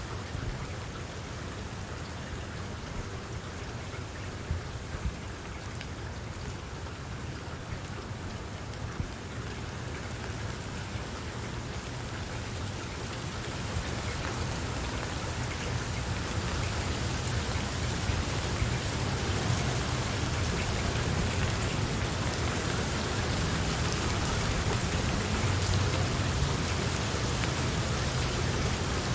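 Steady rain falling, a dense patter of drops that grows gradually louder about halfway through.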